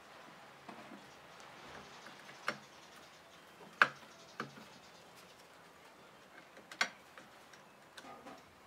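Hand screwdriver driving small screws into wooden blocks on a wooden board: a handful of sharp clicks and taps of metal and wood, the loudest about four seconds in, with smaller ticks between.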